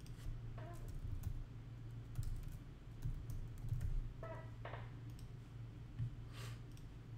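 Typing on a computer keyboard and mouse clicks: scattered sharp clicks over a low steady hum.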